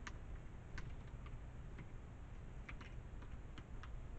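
Plastic parts of a Black & Decker storage cabinet knocking and snapping as panels and shelf rails are pushed together by hand: about ten irregular sharp clicks and taps over a low steady rumble.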